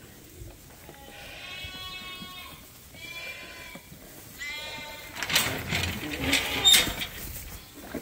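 Lambs bleating: three high calls in the first five seconds, the first the longest. After that comes a louder burst of rustling and knocks.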